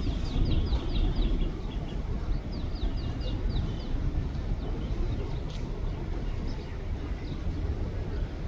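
Low, steady rumble of a Boeing 767's jet engines climbing away in the distance. A bird cuts in twice with a quick run of high, falling chirps, about five a second, in the first few seconds.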